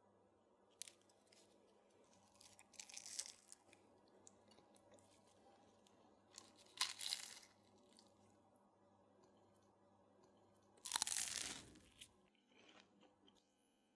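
Flaky pastry crust of a baked tomato tart crunching and crackling as a slice is broken away, in a few short bursts, the loudest near the end.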